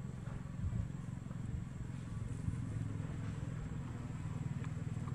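Low, steady rumble of a motor vehicle engine running, with a faint tick or two near the end.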